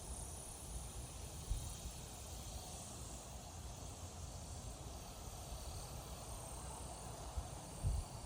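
Faint outdoor storm ambience: a steady high hiss, with wind rumbling on the microphone and a couple of short bumps, one about one and a half seconds in and one near the end.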